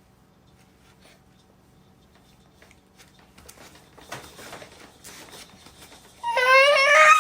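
A cat's long, loud meow with a wavering pitch near the end, after a few seconds of soft rustling.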